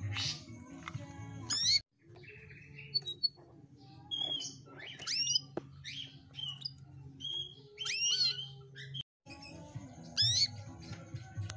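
Female canary calling in short chirps and quick rising whistled sweeps, over a steady low hum. The sound cuts out briefly twice.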